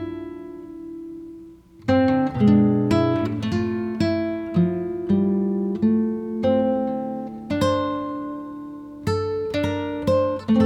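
Background music: an acoustic guitar playing plucked notes. It dips briefly and picks up again about two seconds in.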